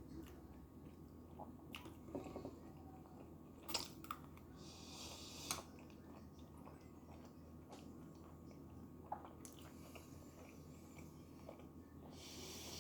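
A person chewing tteokbokki (chewy Korean rice cakes in sauce), with soft, wet mouth sounds and a few sharp clicks about 4 and 5.5 seconds in.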